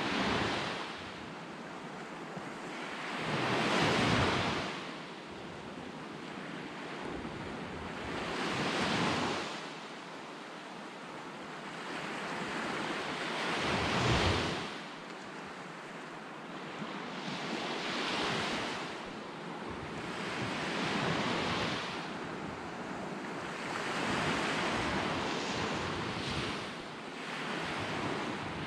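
Sea waves washing up a pebble beach, each wave swelling and fading every four to five seconds.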